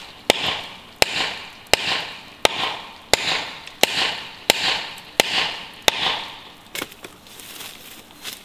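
Axe chopping into a tree trunk near its base: a steady run of about ten sharp blows, roughly three every two seconds, that stops about seven seconds in.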